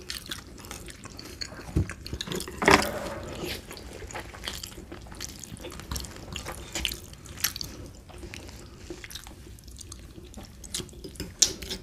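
Close-up wet eating sounds: chewing and slurping of saucy spaghetti, with scattered short sharp clicks, one louder about three seconds in.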